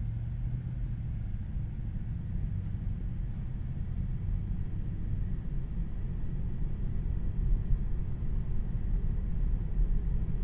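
Low, steady road and tyre rumble inside the cabin of a 2026 Tesla Model 3 RWD while driving, with no engine note from the electric drivetrain. It grows gradually louder toward the end.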